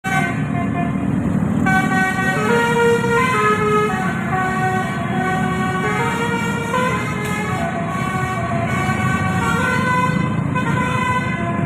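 Bus 'telolet' multi-tone musical horn playing a tune of stepped notes that change every fraction of a second, over the low rumble of the bus engine running.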